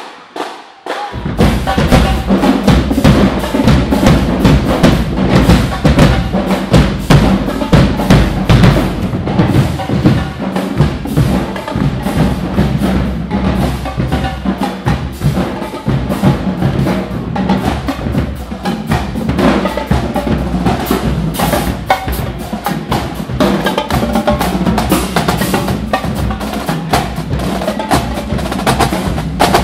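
Marching drumline playing a fast, loud cadence on snare and bass drums, coming in about a second in.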